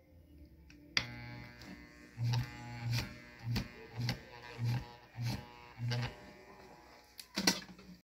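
Electric motor of a MAN fan buzzing once powered about a second in, stalled and vibrating instead of spinning, with a louder pulse about every half second and a few clicks. The motor is stuck for lack of grease on its shaft, the condition that burned out a part.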